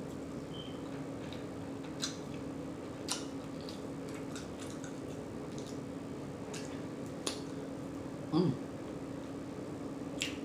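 A person chewing a barbecue bacon slider burger close to the microphone, with soft wet smacking and a few scattered sharp mouth clicks, over a steady low hum. A brief vocal sound comes about eight seconds in.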